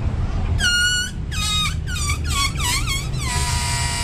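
Air squealing out through the stretched neck of a large inflated latex balloon. A short high squeal comes first, then several wavering squeals that rise and fall, then a long steady squeal from about three seconds in.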